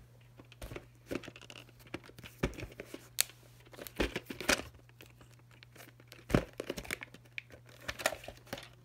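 A plastic VHS clamshell case being picked up and opened by hand: scattered clicks and taps of the plastic, with rustling of the case against bedding, over a faint steady low hum.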